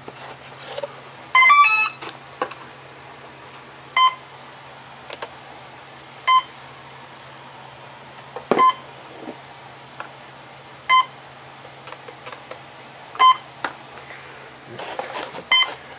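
Electronic speed controller of an electric RC plane powering up as a 3-cell LiPo battery is plugged in: a quick startup tune of several stepped notes, then single short beeps about every two and a half seconds. The repeating beep is the ESC's signal that it is not yet getting a throttle signal from the receiver, which has not been bound.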